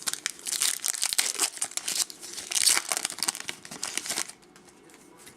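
Foil wrapper of a Topps Chrome baseball card pack crinkling and tearing as it is opened, a dense crackle that dies down about four seconds in.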